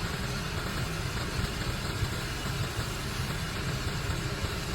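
An engine idling steadily: a constant low rumble with no changes in speed.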